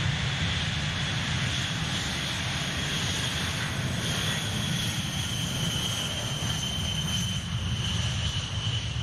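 Eight Pratt & Whitney TF33 turbofan engines of a B-52H Stratofortress at take-off power during the take-off roll. A steady deep rumble runs under a high turbine whine, and the whine drops slightly in pitch in the second half as the bomber rolls past and away.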